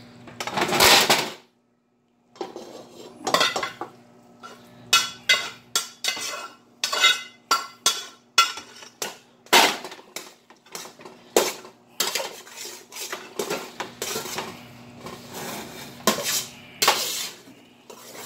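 A spoon clinking and scraping against the sides of a metal stockpot as goulash of noodles and meat sauce is stirred and mixed. There is a loud clatter about a second in, then a long run of irregular scraping strokes.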